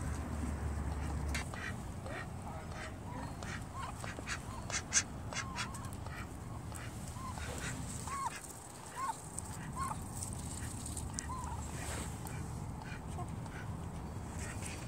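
Muscovy ducks and a hen calling softly while feeding, short rising-and-falling chirps every second or so. Sharp clicks of pecking come between the calls.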